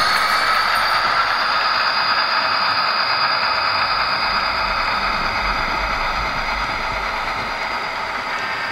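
A train of diesel locomotives rolling past with their engines running. It is a steady, dense rumble with a thin high whine over it, easing off gradually as the locomotives move on.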